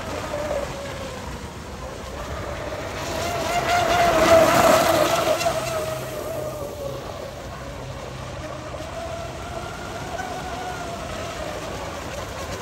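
Electric RC speedboat running flat out, its motor whining over the hiss of the hull and spray on the water. The whine swells as the boat passes close about four seconds in, fades as it moves away, and builds again near the end.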